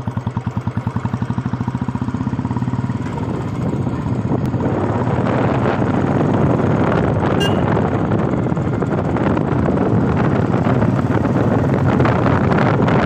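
Motorcycle engine running with a fast, even thump at low revs. From about four seconds in it gets louder and rougher as the bike picks up speed, with a rushing noise building over the engine.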